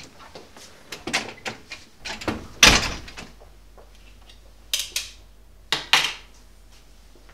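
A house door being shut, with a heavy thud about two and a half seconds in, among lighter knocks and rustles; two more sharp knocks follow near the end.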